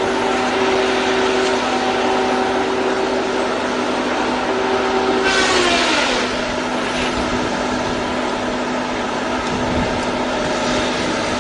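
Heavy wood-cutting machinery running with a steady drone, hiss and hum. A little over five seconds in, a whining tone drops sharply in pitch.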